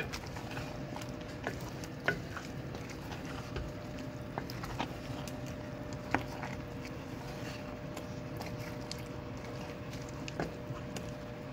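Wooden spoon stirring a thick okra soup in an enamelled pot, with a few sharp knocks of the spoon against the pot and soft simmering over a steady low hum.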